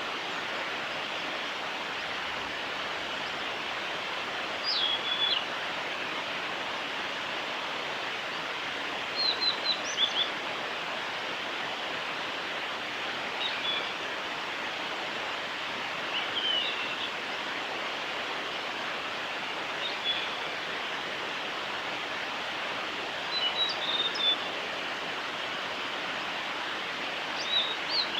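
Male blue-and-white flycatcher singing: short, high phrases of clear notes with jumps in pitch, repeated every few seconds, about seven phrases in all. They sit over a steady rushing background noise.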